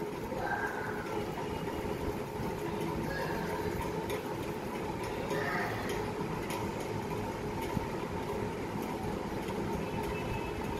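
A steady mechanical hum with an even hiss under it, holding the same level throughout.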